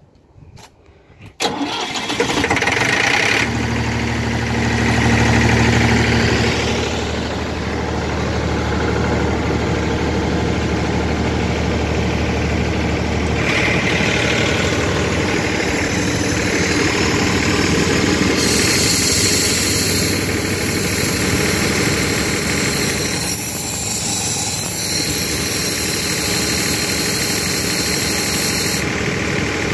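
Airpress BA900 electric piston air compressor switching on suddenly about a second and a half in, then running steadily and loudly. A low hum is strong for the first several seconds of running, and a high hiss joins for most of the second half.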